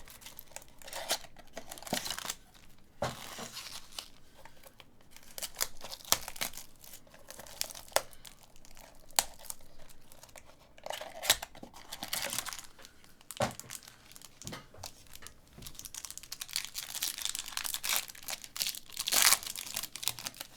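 Trading card pack wrappers crinkling and tearing open, with cards and packaging handled in irregular rustles and sharp clicks, the loudest crinkle near the end.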